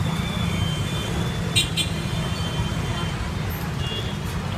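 Rain and city street traffic: a steady low rumble of passing vehicles under an even hiss, with a short, sharp, high-pitched double toot about a second and a half in.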